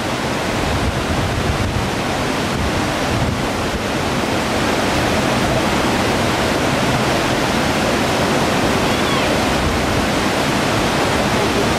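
Wind on the microphone: a steady rushing noise with a gusting rumble underneath.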